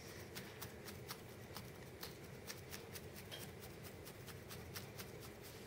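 Felting needle tool repeatedly stabbing through loose wool into a burlap-covered felting pad: a quick, irregular series of faint crisp pokes, several a second.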